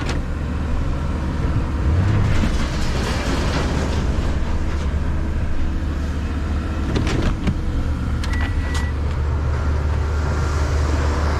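Vehicle engine running steadily, with a couple of sharp knocks about seven seconds in and a short beep shortly after.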